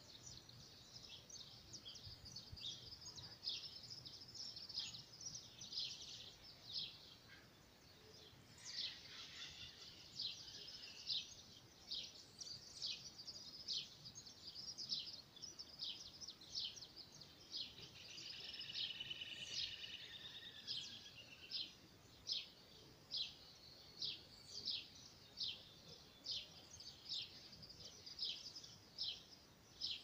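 Wild birds chirping in trees: short, high, sharp chirps, quick and overlapping through the first half, then repeated about once a second toward the end. A brief rapid trill sounds a little past halfway.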